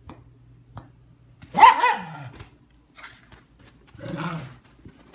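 Dogs play-fighting, a German shepherd puppy and a larger dog: one loud bark about a second and a half in, its pitch falling away, then a second, lower bark about four seconds in.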